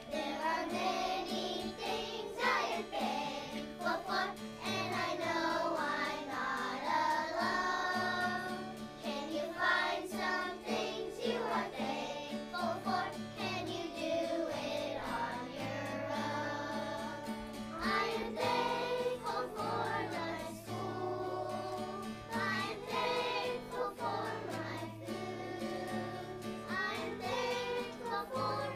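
A group of young children singing a song together in unison, over a steady instrumental accompaniment.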